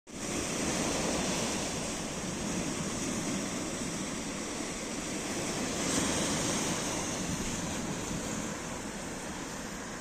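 Small Mediterranean waves breaking and washing up a dark sand and pebble beach, foaming around rocks at the shore. A steady wash that swells slightly about a second in and again around six seconds.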